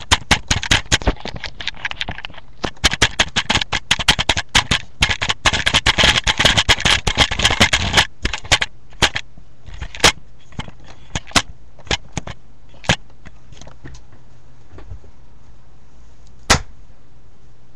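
A rapid, irregular run of sharp pops or cracks, many a second, thinning after about eight seconds to scattered single pops, with a last one near the end.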